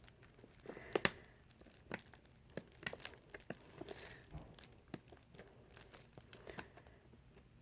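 Plastic wrapping on a CD package being picked at and crinkled by bare fingers trying to open it, with scattered small clicks and crackles; a sharper click about a second in.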